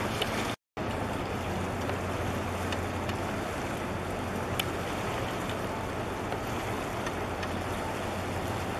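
Steady wind and harbour water noise at the shoreline, with a low steady hum underneath. The sound drops out completely for a moment just after the start.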